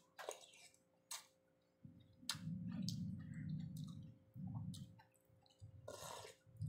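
Close-up eating sounds of fish and shrimp soup: sharp wet mouth clicks and smacks as spoonfuls are taken and chewed, with a low muffled chewing sound from about two seconds in.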